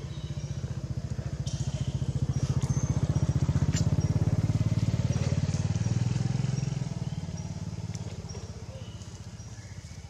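A passing motor vehicle's engine, a low rapid pulsing that grows louder to a peak around the middle and then fades away.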